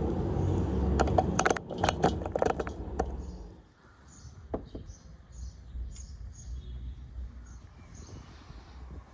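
Low rumbling handling noise with a quick run of clicks and knocks as the camera is moved, lasting about three and a half seconds. Then it falls quieter and small birds chirp in short, high notes, with a couple of soft knocks.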